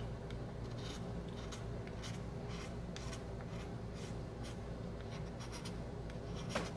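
Small hand file scraping in short strokes, about two a second, against the briar shank of a Dunhill pipe where it meets the stem, filing down the ledge so the shank matches the stem. A sharp click comes near the end, over a steady low hum.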